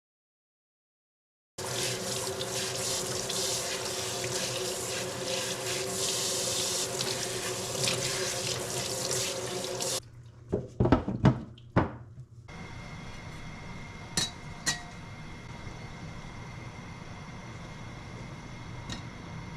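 Water running from a tap for about eight seconds, then cut off, followed by a few knocks and a quieter steady hum with a couple of clicks.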